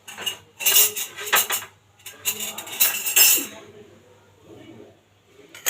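Metal utensils clattering and clinking against kitchen dishes in two bursts of about a second and a half each, with one sharp clink near the end.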